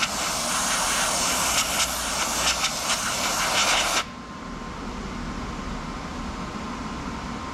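A pressurised spray hissing steadily, flickering slightly, then cutting off abruptly about four seconds in, leaving a quieter steady background hum.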